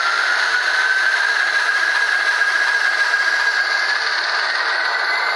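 Sound decoder in a Bachmann HO scale ALCO S4 model locomotive playing its recorded ALCO 539T turbocharged diesel prime mover notching up in throttle, heard through the model's small speaker. The turbocharger whine climbs steadily in pitch over the engine's running noise and rises a little further near the end.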